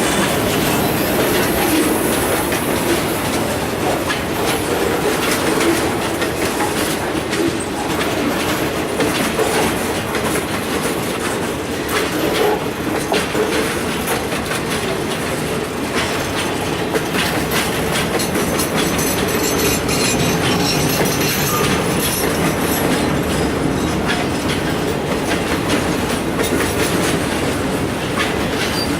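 A long freight train's cars rolling steadily past, their wheels rumbling with a continuous clickety-clack of clicks over the rail joints.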